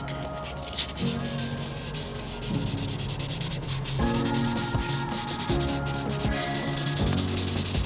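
Steel knife blade rubbed against an abrasive sharpening surface in rapid repeated scraping strokes, the edge being ground sharp.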